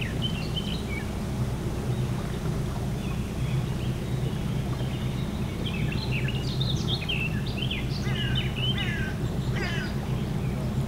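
Birds calling and chirping, a few at first and thicker from about the middle on, over a steady low hum.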